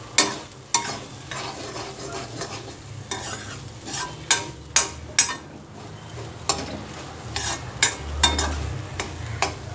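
Metal spoon stirring and scraping a dry, crumbly mutton-and-egg mixture around a metal kadai, with frequent irregular clinks of the spoon against the pan over a steady sizzle of frying.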